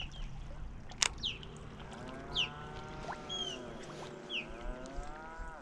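A distant motorboat engine drones for a few seconds, its pitch dipping and then rising again. Several short, falling bird chirps sound over it, and there is a sharp click about a second in.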